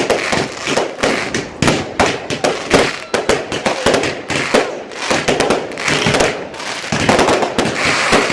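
Fireworks going off in rapid succession: many sharp bangs and cracks, several a second, growing denser near the end.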